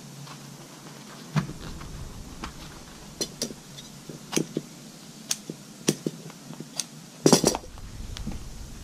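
Steel upholstery shears snipping and trimming cover material around a sun visor: a string of sharp metallic clicks a second or so apart, with a louder clatter a little past seven seconds in as the shears are set down on the bench.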